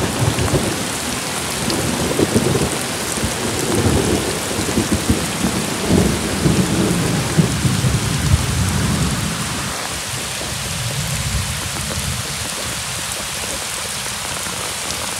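Heavy rain pouring down, with rain striking the microphone in small clicks. Over it a long, uneven rumble of thunder dies away about two-thirds of the way through.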